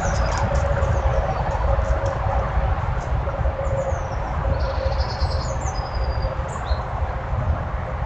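Steady outdoor rumble and hiss, heaviest in the low end, with small birds chirping high and faintly over it: scattered short falling calls and a brief trill about halfway through.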